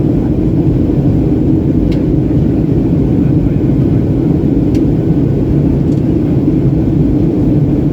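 Steady, loud cabin rumble of a Boeing 737-800 with its CFM56-7B engines running, heard from inside the cabin at a window seat over the wing, with a few faint clicks.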